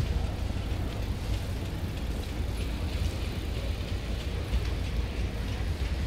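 Steady low rumble of outdoor background noise, with faint light ticks over it.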